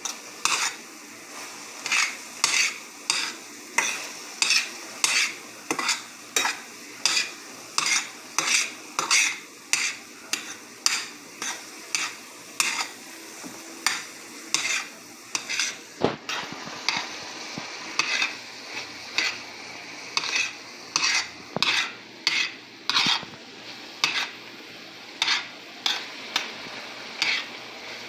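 Ground beef and onions frying in a pan, a utensil scraping and stirring through the meat in regular strokes a little under two a second over a steady sizzle. One sharp knock comes about halfway through.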